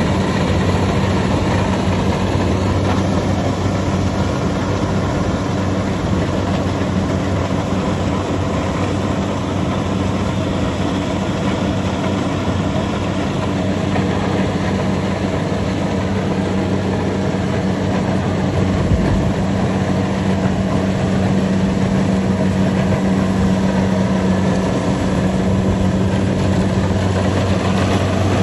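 Kubota combine harvester's diesel engine running steadily under a constant noisy machine wash, with a low, even hum.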